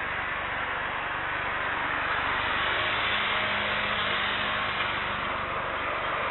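Steady jet engine noise from a Boeing 747-8 freighter's GEnx engines, an even hiss that swells slightly partway through.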